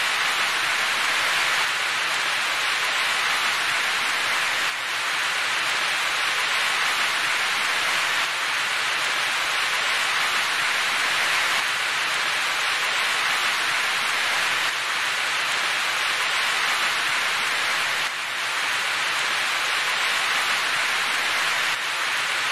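Rain falling steadily, a continuous even hiss of a downpour.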